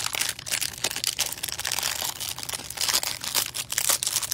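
Clear plastic wrap crinkling and tearing as it is peeled off a stack of trading cards from a Mosaic NBA hanger box, in quick, irregular crackles.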